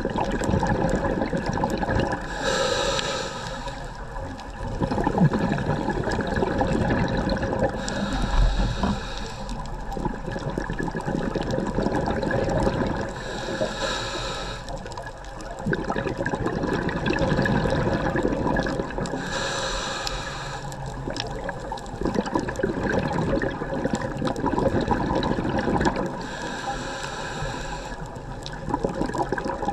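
Scuba diver breathing through a regulator underwater: five breaths, each a short hissing inhale about every six seconds followed by a few seconds of bubbling exhaust.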